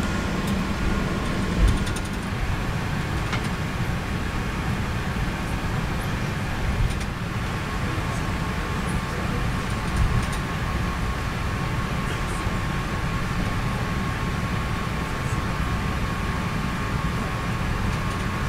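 Cabin noise inside an Airbus A380-800 airliner: a steady rumble and hum, with three brief thumps about two, seven and ten seconds in.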